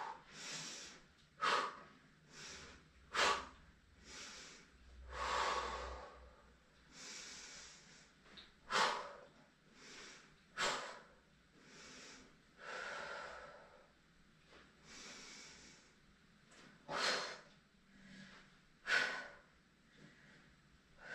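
A person breathing hard under exertion: a run of audible breaths in and out, short sharp ones mixed with longer ones, about one every second.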